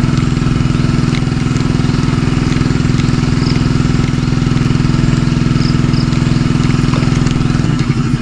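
A small engine idling steadily, its even low running note changing slightly near the end.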